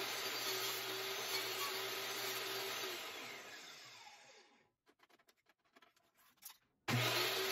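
Portable table saw running as it trims the edge of a plywood disc, then switched off about three seconds in, its motor whine falling as the blade spins down. A few light knocks follow as the plywood is handled. Near the end the saw is running again at full speed, starting abruptly.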